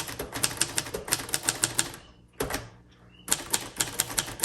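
Keys of a 1953 Royal Quiet Deluxe manual portable typewriter being typed, the typebars striking the platen in quick clacks, about six to eight a second. A run of typing, a short pause with a single stroke, then another run near the end.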